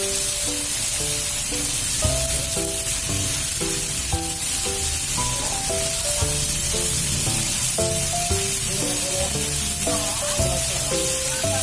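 Food frying in hot oil in a pan, a steady sizzle, under background music with a melody of short separate notes.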